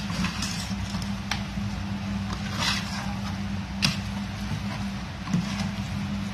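A metal spoon stirring raw chicken pieces through thick masala in a steel pot, scraping and clinking against the pot's sides, with a few sharp clinks, the loudest a little before four seconds in. A steady low hum runs underneath.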